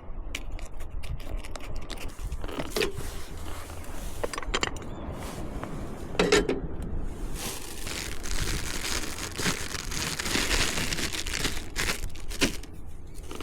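Knife scraping and cutting through a fish, with repeated sharp clicks and scrapes and a longer stretch of steady scraping about halfway through.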